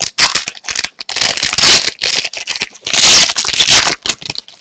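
Foil wrapper of a hockey card pack crinkling and tearing as the pack is opened, in a string of short, loud rustles.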